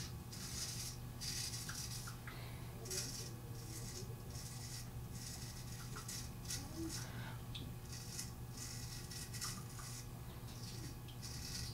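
Straight razor scraping through lathered stubble on the chin in short, irregular strokes, each a brief rasp, over a low steady hum.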